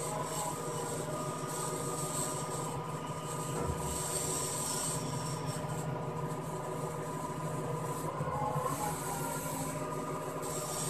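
Crane engine running steadily while hoisting a bundle of steel rebar off a flatbed truck: a constant low mechanical drone with a high steady whine over it.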